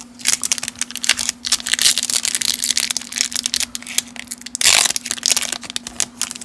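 Foil wrapper of a 1991 Leaf Studio baseball card wax pack being worked open by hand, crinkling steadily. About four and a half seconds in there is a louder rip as the stubborn glued seam gives way.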